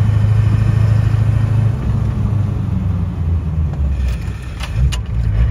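A 700-horsepower car's engine running with a steady deep rumble, heard from inside the cabin while cruising. It eases off about two seconds in and dips lower near the end, where two short sharp clicks are heard.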